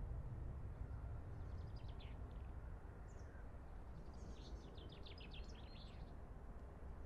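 A small songbird singing faintly over a steady low rumble of background noise: a short phrase about a second and a half in, then a longer run of quick high notes about four seconds in.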